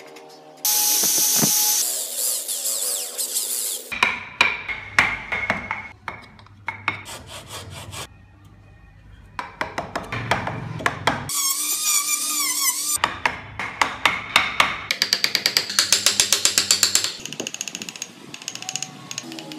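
Hand carving of a wooden block: a steel chisel tapped into the wood in runs of sharp knocks, with stretches of scraping and rasping as blades pare the wood. The sounds come in short, abruptly cut segments, with a quick even series of knocks late on.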